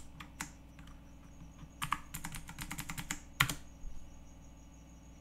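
Typing on a computer keyboard: a few scattered keystrokes, then a quick run of them, with one sharp, loud key press about three and a half seconds in; the typing stops for the last second or so.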